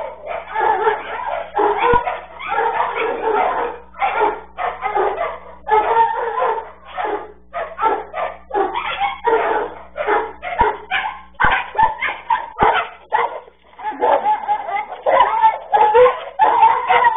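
Dogs barking and yelping in rapid, repeated bursts that become almost continuous in the last few seconds.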